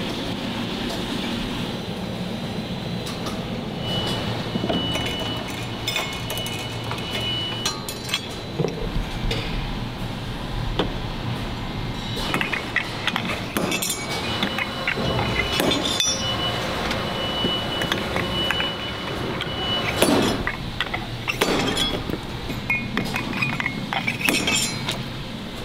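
Scattered metallic clinks and knocks of steel rock drill head parts being handled, with short ringing tones, over a steady factory hum.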